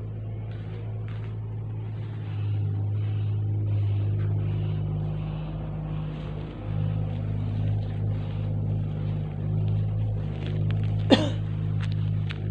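Steady low mechanical hum, growing a little louder about two seconds in, with one sharp click near the end.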